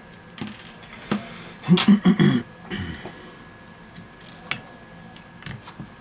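Clicks and knocks of a smartphone display module being handled, set down and picked up on a silicone repair mat. A quick run of louder knocks comes about two seconds in, then scattered light clicks.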